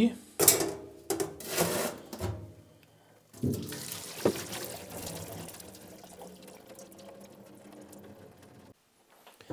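Metal clanks of a stainless pot and colander in a steel sink, then cooking water from boiled vegetables pouring through the stainless mesh colander and splashing into the sink. The pour slowly tapers off to a trickle and stops.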